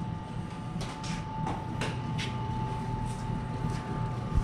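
Steady hum of a Milford 256 riveting machine left running, with scattered light clicks and rattles as its tooling is handled, and two dull thumps near the end.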